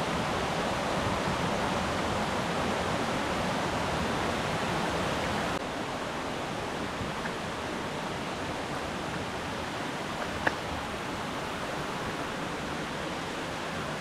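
Steady rush of a mountain stream, an even hiss of running water that drops a little in level about halfway through. One short click sounds about ten seconds in.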